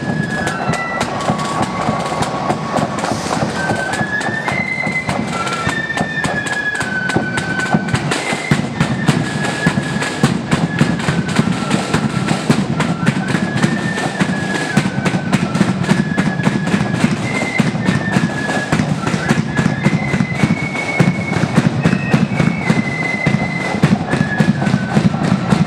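Marching flute band playing a tune: a high flute melody moving in short stepped notes over rapid snare drumming and a heavy bass drum.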